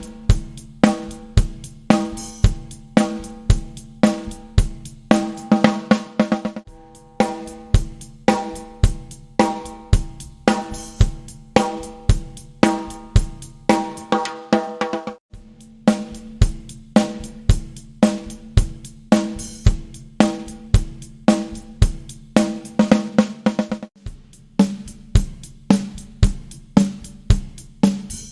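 Drum kit beat played on a Tama Warlord Valkyrie snare drum, with kick drum and hi-hat or cymbals; the snare hits ring on with a clear pitched tone. Denser fills come about five and thirteen seconds in, and the playing cuts out for a moment about fifteen seconds in before the beat starts again.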